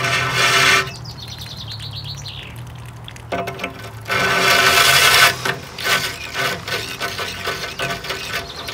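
Cordless drill running a water-cooled core bit through an aquarium's glass pane, in bursts of a second or two, with a steady motor whine over a hiss of grinding and water. Between the first two bursts a bird sings a short descending trill.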